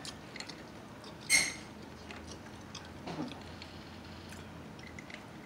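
Faint close-up chewing and mouth clicks of a person eating, with one sharp, loud noise about a second and a half in.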